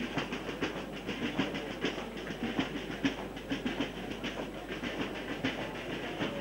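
Dense, steady crowd noise from a large gathering on the move, with many irregular sharp knocks and clicks, such as feet and hands, scattered all through it.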